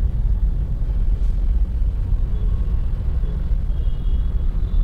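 A steady, deep background rumble with no distinct clicks or knocks.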